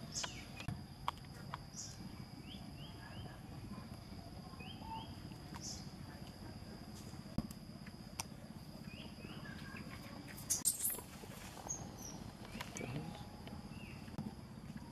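Outdoor ambience: a steady high-pitched drone over a low rumble, with short faint chirps every few seconds and a quick cluster of sharp clicks about ten and a half seconds in.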